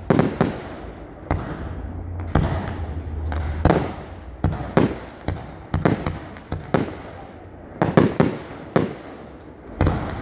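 Fireworks display: a rapid, irregular series of sharp bangs from bursting shells, more than a dozen in ten seconds and several close together near the end, each trailing off in a short rumbling echo.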